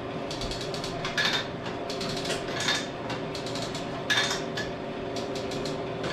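Steel chain and rigging clinking and rattling as it is handled, with a sharper ringing metallic clink about every second and a half, over a steady low hum.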